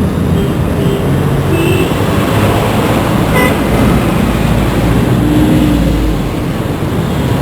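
Indian road traffic: vehicle engines running steadily, with a few short horn toots, one sharp beep about three and a half seconds in.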